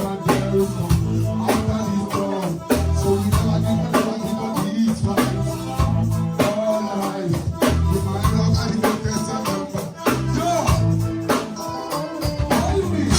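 Live band playing a reggae dancehall riddim: bass, drums and guitar with a steady beat.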